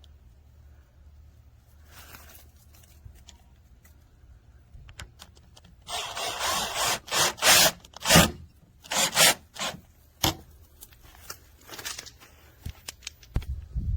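Handling noise: rubbing, scraping and a few knocks as things are moved about on wood. It comes in a cluster of short bursts after several quiet seconds, with no drill motor running.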